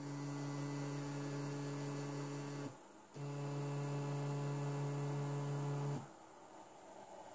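Stepper motor spinning at a constant step rate, giving a steady pitched hum with overtones, in two runs of nearly three seconds each with a half-second stop between. Its step pulses are relayed through an Arduino Nano whose code still has conditionals and spurious GPIO writes, the version that puts timing jitter on the pulses.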